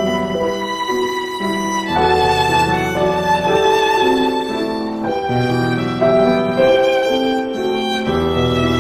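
Live piano trio playing: violin bowing held melody notes over sustained low cello and piano bass notes.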